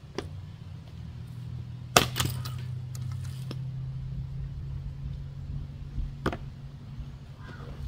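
Splitting tool striking a round of wet, stringy firewood once about two seconds in, with a sharper, quieter knock near six seconds. A steady low hum runs underneath.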